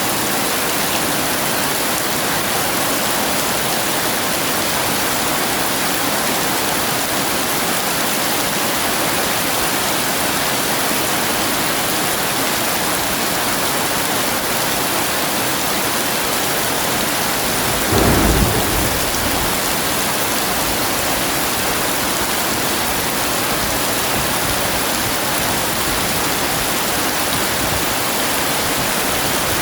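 Heavy rain falling steadily in an even hiss, with a single brief clap of thunder about two-thirds of the way through.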